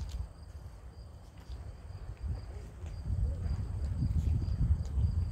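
Wind buffeting the microphone at an open shoreline, a low uneven rumble that grows stronger about three seconds in.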